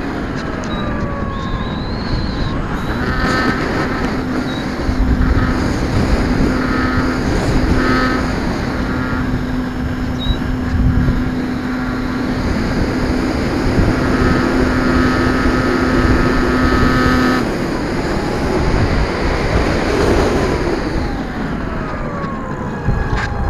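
Electric motor and propeller of an E-flite Apprentice RC floatplane in flight, a buzzing whine. Its pitch glides down near the start and again near the end, and holds steady for about the middle half.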